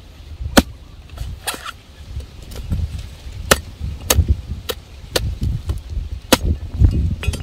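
Machete chopping into the husk of a green coconut: about eight sharp, irregularly spaced chops, some hard and some lighter, over a low rumble.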